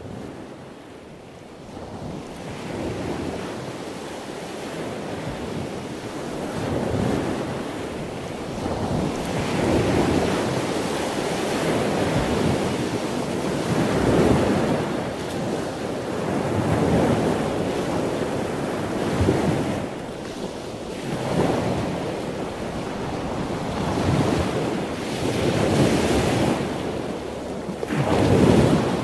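Ocean surf breaking on a rocky shore, with wind. It fades in over the first couple of seconds, then swells and ebbs every few seconds as the waves come in.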